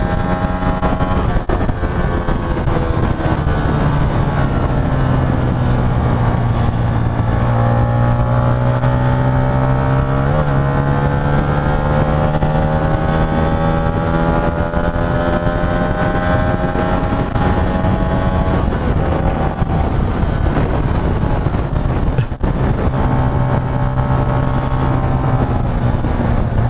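Hyosung GT125's 125 cc V-twin engine running at speed on the road, with wind rushing over the microphone. The engine note dips a few seconds in, rises gradually through the middle, then dips again later.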